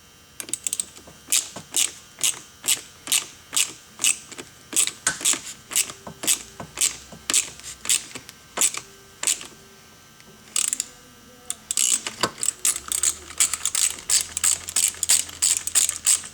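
Hand ratchet clicking as it is turned, tightening a 6 mm nut on a flaring tool that swells out the new rope bushing in a Stihl 026 chainsaw starter housing. Clicks come about two a second, pause briefly past the middle, then come faster near the end.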